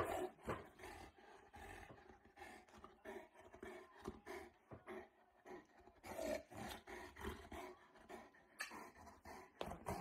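Boerboel play-growling, a run of short growls that goes on throughout.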